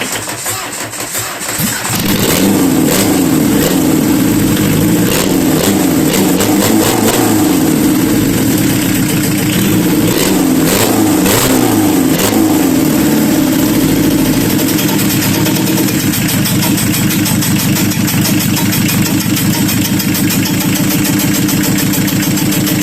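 Renault Kangoo 1.9 diesel engine starting for the first time after repair: it cranks and catches about two seconds in, then runs with its speed rising and falling unevenly before settling to a steady idle in the second half.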